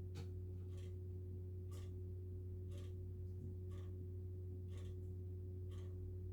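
Faint ticking, one tick about every second, over a steady low electrical hum.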